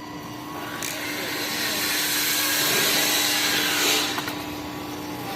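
Electric motor and gear drive of a handmade 1/16 scale 4x4 RC truck running, growing louder from about a second in and easing off near four seconds, over a steady hum.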